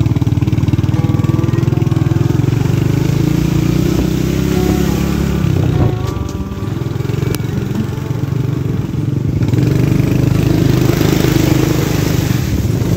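Small motorcycle's engine running as it rides along a rough dirt track, heard close from the rider's seat. The engine note drops back about six seconds in, then picks up again. A louder hiss joins over the last few seconds.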